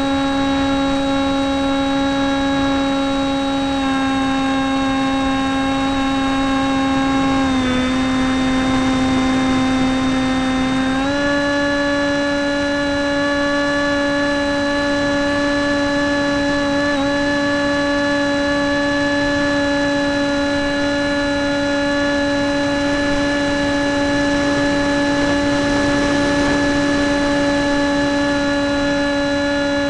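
Model airplane's motor and propeller in flight, heard close up from a camera under the wing: a steady droning note with wind rush. The pitch sags a little twice in the first eight seconds, steps up about eleven seconds in as the throttle is opened, and then holds steady.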